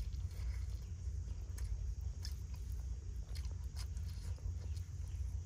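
Someone chewing and biting food, with scattered small clicks over a steady low rumble.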